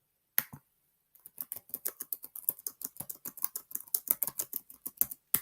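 Typing on a computer keyboard: one key click, then a quick run of keystrokes lasting about four seconds, ending with a single sharp key press.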